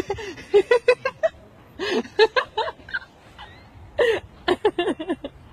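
A man laughing helplessly in three bouts of short, rapid, high-pitched bursts.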